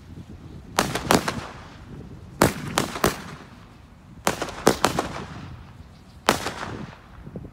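Small aerial fireworks launching and bursting in quick succession. Sharp bangs come in clusters of two or three, about every two seconds, each with a short fading tail.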